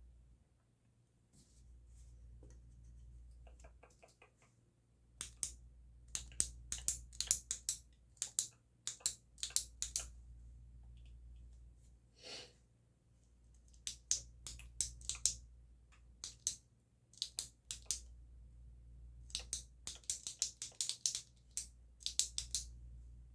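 Close-up ASMR clicking and ticking: rapid clusters of sharp, crisp clicks, several a second, separated by short pauses.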